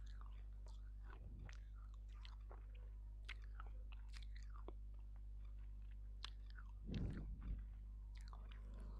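Close-miked chewing at the mouth, soft wet clicks and crackles, with a louder, deeper mouth sound about seven seconds in. A steady low hum runs underneath.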